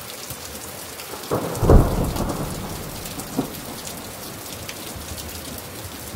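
Steady rain falling on a grass lawn, with a single low rumble of thunder about a second and a half in that swells and fades within a second or so.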